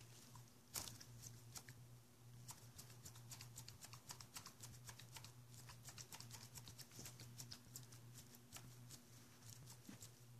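Faint, irregular light clicks and crinkles of gloved hands handling the handlebar controls and the open master cylinder, over a low steady electrical hum.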